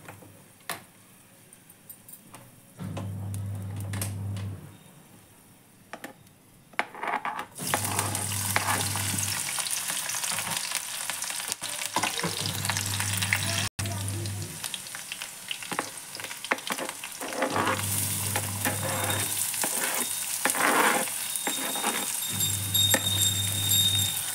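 Chopped green chillies frying in hot oil in a kadhai. The sizzling starts loudly about seven seconds in and goes on with stirring clicks, after a few quiet seconds with small knocks.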